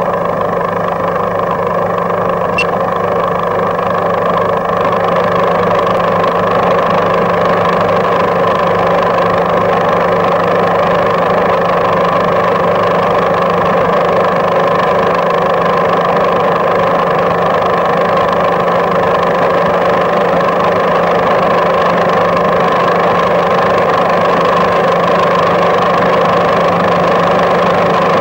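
A motor running steadily: a continuous mechanical hum with several fixed tones and no change in speed.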